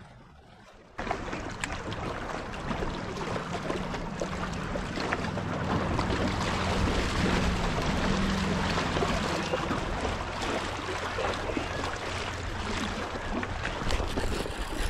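Wind buffeting the microphone over choppy water lapping against the shoreline rocks, starting abruptly about a second in and then holding steady.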